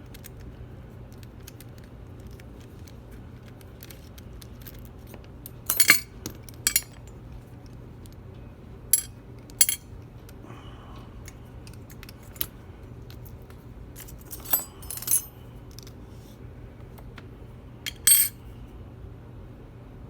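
Sharp metallic clinks of small tools and padlock parts knocking together as the lock is taken apart, about eight scattered clinks with pauses between, two of them louder.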